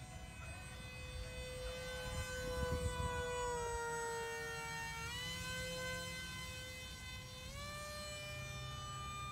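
Motor of a foam board RC F-22 Raptor model jet whining as it flies past close overhead. The whine grows louder about two to three seconds in and slides slowly down in pitch, then jumps up in pitch twice, about five and seven and a half seconds in. Low wind rumble sits beneath it.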